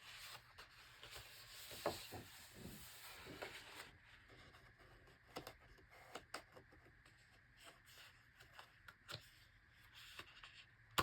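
Faint paper rustling, rubbing and soft taps as the large pages of an oversized hardcover book are handled and turned.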